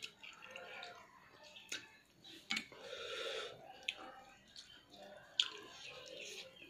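Close-up eating sounds of rice and curry eaten by hand: wet chewing and smacking of the mouth, with several sharp lip-smack clicks, the loudest a little past halfway.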